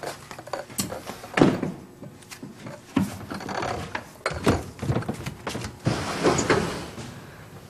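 Irregular knocks, scuffs and footsteps of people jostling and walking on a wooden floor, with a sliding lattice door opening.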